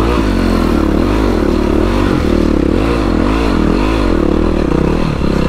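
Dirt bike engine revving up and down over and over as the throttle is opened and closed, about twice a second, settling steadier near the end.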